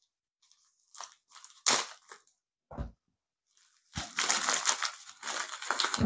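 Crinkling and rustling of a white paper mailing envelope being handled and pulled open: short bursts with a couple of sharp crunches from about a second in, becoming near-continuous over the last two seconds.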